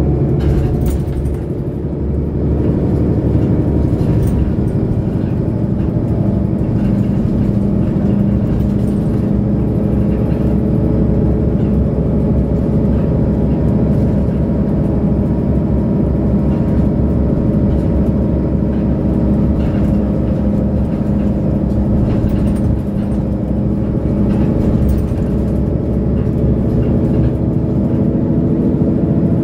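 Diesel engine of a 2008 Mercedes-Benz O530 Citaro Facelift Ü bus idling steadily while the bus stands, heard from inside the passenger compartment.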